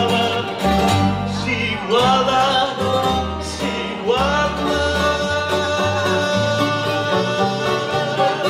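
Live Greek taverna band playing: bouzoukis and acoustic guitar strumming over a double bass, with a male singer whose phrases begin about two and four seconds in.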